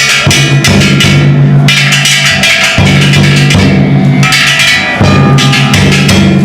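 Ishidori-bayashi festival music: a float's large taiko drum and its kane gongs beaten together at full force, a dense, loud clanging over deep drum strokes.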